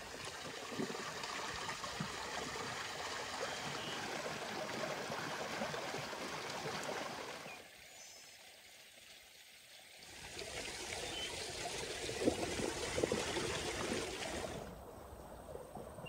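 Water pouring from a stone spring fountain's spout and splashing over the stones and into a metal bowl as raw chicken pieces are rinsed by hand in it. The water sound drops low for about two seconds midway, then returns with a few sharper splashes.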